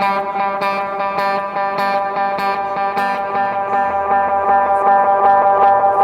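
Electric guitar through an Earthquaker Devices Avalanche Run delay and reverb pedal: evenly repeating echoes pile up into one sustained ringing tone that swells slightly louder toward the end, the delay feeding back into self-oscillation.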